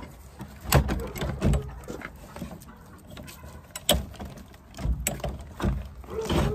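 A handful of short separate knocks and thumps over low handling rumble, as a wooden door is handled. The sharpest knock comes about four seconds in.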